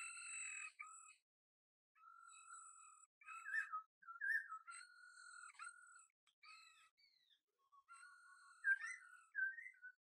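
Puppies whimpering: a string of short, high-pitched whining calls, some sliding up or down in pitch, with brief gaps between them.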